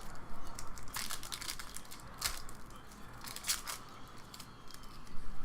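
Trading-card pack wrapper crinkling and tearing as it is handled and opened, in several short rustling bursts.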